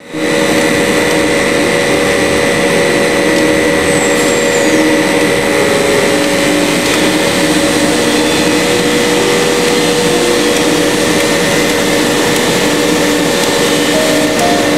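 PVC foam board extrusion line running: extruder drive motor and machinery giving a loud, steady mechanical din with a couple of steady hums and a higher whine.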